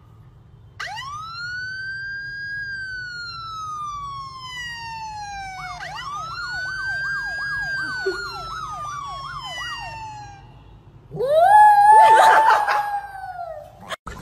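A siren wailing twice, each time rising quickly and then falling slowly over about five seconds, the second with a fast warble laid over it. About eleven seconds in comes a louder, rougher wail that rises and holds for a couple of seconds.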